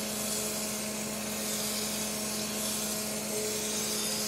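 Crankshaft grinder's abrasive wheel grinding a journal on an L10 Cummins diesel crankshaft under a stream of coolant: a steady hiss over a low hum, with a second steady tone joining about three seconds in. The wheel is being fed in about ten thousandths of an inch to grind an out-of-round journal back toward round.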